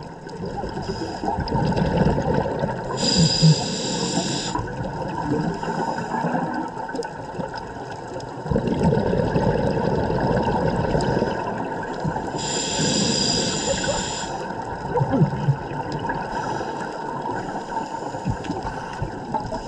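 Scuba regulator breathing heard underwater: two hissing inhalations about nine seconds apart, alternating with the gurgling rush of exhaled bubbles.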